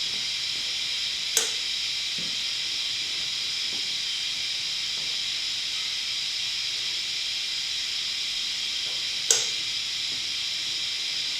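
A steady, even hiss with two short sharp clicks, one near the start and one near the end; no engine is heard running.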